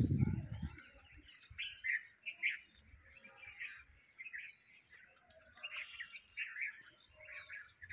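Small birds chirping and twittering over and over, with a low rumble in the first second that dies away.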